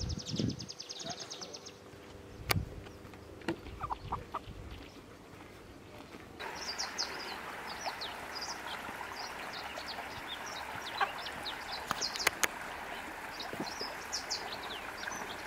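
Many short, high bird chirps over a steady outdoor hiss, starting abruptly about six seconds in. Before that there are only a few sharp clicks.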